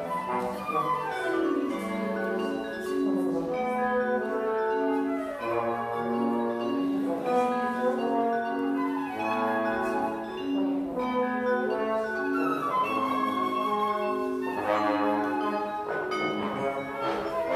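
Live chamber trio of flute, trombone and mallet percussion playing an ensemble piece together, with sustained trombone and flute lines over struck mallet notes.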